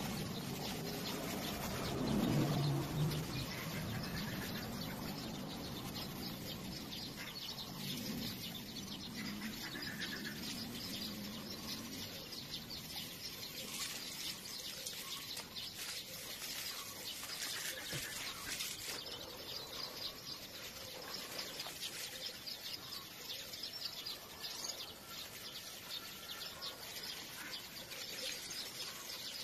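Small birds chirping over a steady hiss of water running from a garden hose.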